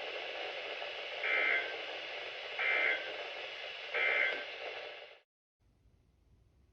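Weather radio receiver hissing with static while it sends three short two-tone EAS/SAME data bursts, about 1.3 s apart: the End of Message signal of a weekly test. The radio audio then cuts off suddenly, about five seconds in.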